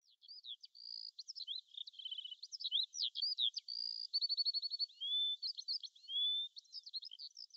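A songbird singing a fast, varied song of whistled notes, slides and short trills.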